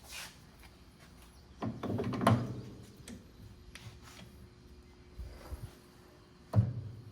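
Metal clunks and knocks of a PTO yoke being handled and set up in a lathe chuck: a cluster of knocks about two seconds in, a few dull thuds later and one sharp clunk near the end.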